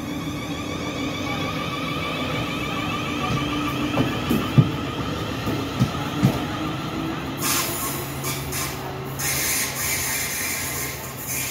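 South Western Railway Class 450 Desiro electric multiple unit pulling out of the platform, its traction motors giving a whine that slowly rises in pitch as it gathers speed. About four sharp knocks come in the middle, and a broad hiss comes in about two-thirds of the way through.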